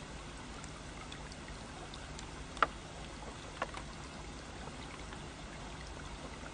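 A man drinking water from a glass: two soft clicks of the glass, about two and a half and three and a half seconds in, over faint steady room hiss.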